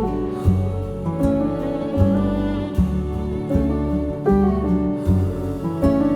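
Background music: a gentle instrumental with sustained low string notes and a steady beat.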